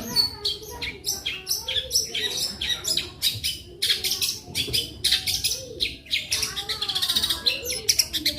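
Long-tailed shrike (cendet) singing a rapid, varied song of quick chirps and mimicked calls, ending in a fast rattling trill.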